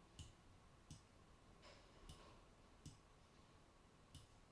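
Faint clicks of a computer mouse, four sharp single clicks at irregular intervals.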